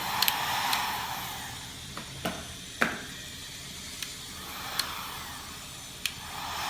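Hair dryer blowing, its airflow noise swelling and fading as it is moved about, likely warming a wax repair pencil. Several light clicks and knocks from handling tools and objects.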